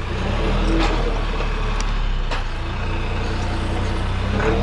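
Compact tractor engine running steadily under work, with a few sharp knocks.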